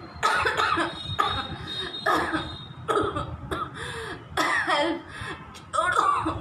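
A woman coughing over and over in short, voiced bursts, the throat burn of a chilli-eating challenge.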